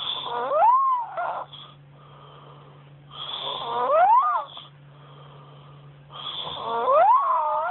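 A young girl snoring loudly, three snores about three seconds apart, each carrying a whistling tone that rises in pitch: demonic snoring.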